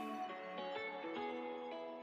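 Soft background music with held, sustained notes, fading slightly toward the end.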